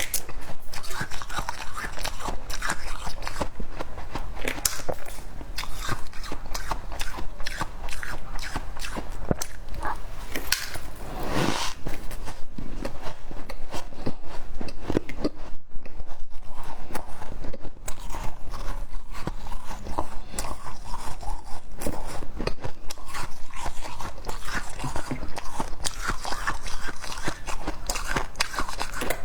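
Close-miked biting and chewing of frost scraped from a freezer: a dense, continuous run of crunches and crackles, with a louder burst about eleven seconds in.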